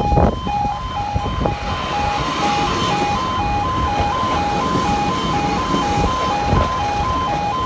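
Level crossing warning alarm sounding its alternating two-tone warble, about two of each tone a second, while an East Midlands Trains Class 156 diesel multiple unit runs past over the crossing, its noise swelling from about two seconds in.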